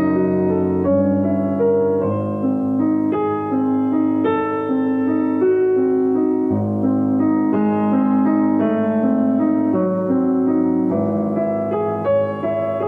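Background piano music: sustained notes and chords, the notes changing about once a second.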